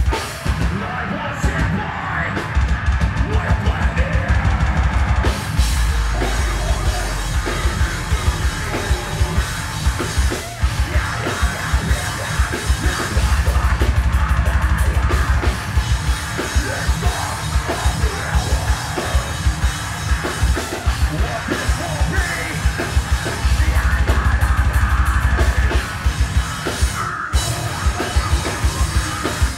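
Progressive metalcore band playing live: heavily distorted low guitars, fast bass-drum strokes and screamed vocals, loud and continuous, with a brief drop in the sound near the end.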